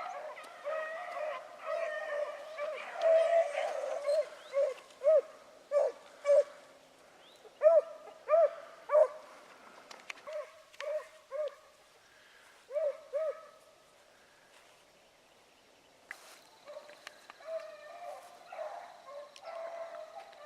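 Beagles baying on a rabbit's track: a string of separate, high, ringing barks that thins out and stops for a couple of seconds after the middle, then picks up again near the end.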